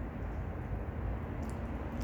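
Pallet wood burning in a Solo Stove wood stove: a steady low rumble of the fire with one faint snap about one and a half seconds in.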